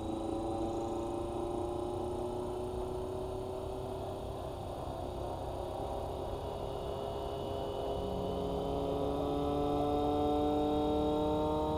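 Electric T-Rex 450 RC helicopter (Scorpion 2221 brushless motor) spooling up its main rotor on the ground: a motor and gear whine that slowly rises in pitch, growing a little louder and fuller about eight seconds in.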